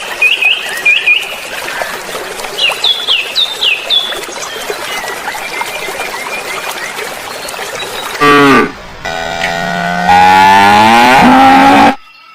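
Cow mooing: a short moo about eight seconds in, then a long drawn-out moo. Before that, a run of short high chirps over a steady background hiss.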